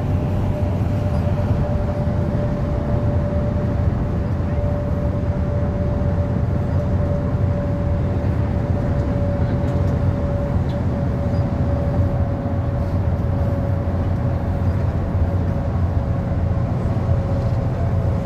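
Passenger train running steadily, heard on board: a continuous low rumble with a steady whine above it.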